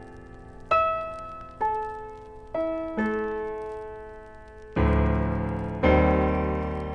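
Slow, calm solo piano music: single notes and soft chords struck about once a second, each left to ring and fade, with two fuller chords near the end.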